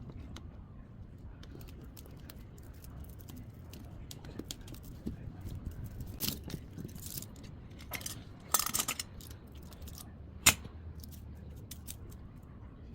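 Scattered clicks and clinks of tools and loose metal and plastic parts being handled while a top-loading washing machine is taken apart for scrap, with a short harsh scraping rasp about two-thirds of the way through and a single sharp click soon after.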